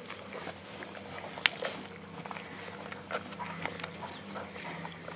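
Flatcoated Retriever puppies suckling from their mother: a busy run of small wet smacking and clicking sounds.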